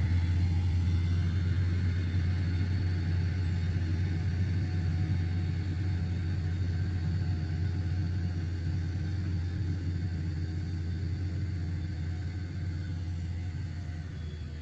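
Diesel engine of a Komatsu heavy machine running steadily with a deep, even rumble that slowly fades.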